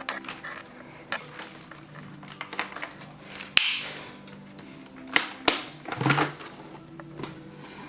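Sharp plastic clicks and knocks from handling a Shark vacuum's parts, the loudest a snap about three and a half seconds in followed by a short hiss, with more clatter a couple of seconds later. Faint steady tones run underneath.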